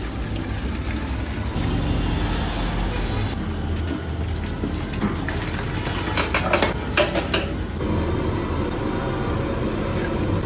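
Liquid from a jug pours into a steel container. About six seconds in, raw chicken pieces are tipped from a metal bowl into a big pot of simmering curry, with a burst of splashing and clattering that lasts about two seconds. A steady low rumble runs underneath.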